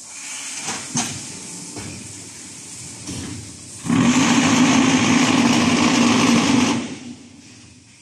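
Concrete hollow block making machine running a forming cycle: a few metal clanks and knocks, then about three seconds of loud, steady vibration from its compaction table that starts about four seconds in and stops suddenly about seven seconds in.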